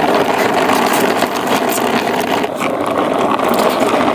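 Toy monster truck running along: a steady whir from its small motor and gears, with no break.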